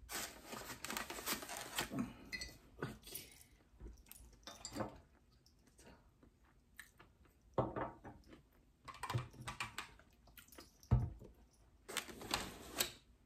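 Handling noises on a glass tabletop: scattered knocks, clicks and rustles as bottles are set down and a foam takeout box is moved, with a few sharper knocks partway through.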